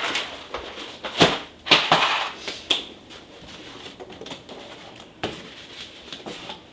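Spare mechanical keyboard switches and keycaps being handled and packed away: a series of small plastic clicks and knocks, several close together in the first three seconds, then sparser.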